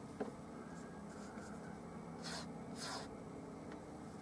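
Flat bristle brush dragging oil paint across a canvas: two short scratchy strokes about two and three seconds in, after a small click near the start, over a faint steady hum.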